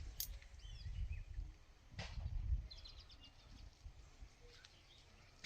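Small birds chirping and twittering in short calls, including a quick run of ticking notes about midway, over a low, uneven rumble. Two sharp clicks, one right at the start and one about two seconds in.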